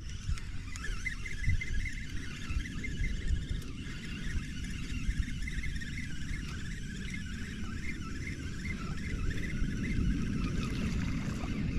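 Wind buffeting the microphone and water lapping at a small boat's hull, a steady low rumble, with a faint rapid high warbling running over it.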